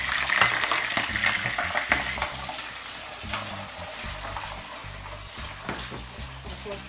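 Garlic cloves sizzling in hot oil in a non-stick wok. The sizzle is loudest in the first two seconds and then dies down, with the scrape and tap of a spatula stirring them.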